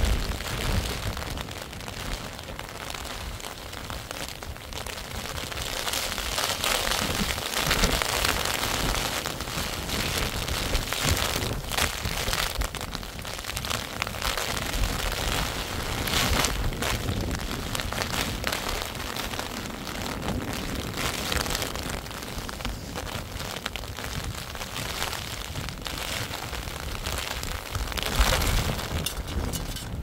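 Storm wind blowing hard and buffeting the microphone: a continuous rushing noise with sharper gusts every few seconds, the strongest near the end.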